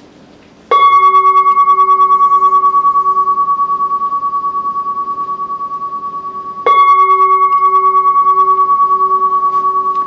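A large metal singing bowl struck twice with a padded wooden striker, about six seconds apart. Each strike rings on with a clear high tone over a lower, pulsing hum that slowly fades, and the second strike lands while the first is still ringing.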